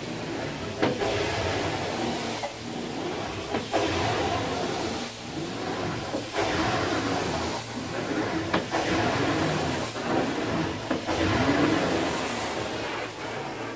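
Carpet-cleaning extraction wand on a vacuum hose, spraying and sucking water from carpet in repeated strokes: a steady rush of suction that swells and eases with each pass, with a few short sharp clicks.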